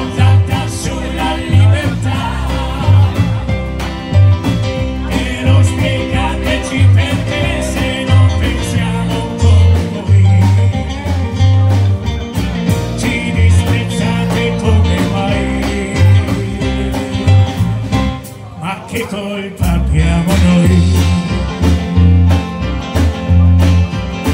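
Live band playing a song: electric guitar, electric keyboard and drum kit over a strong bass line with a regular beat, and a man singing lead into a microphone. The music thins out briefly about three-quarters of the way through, then comes back in full.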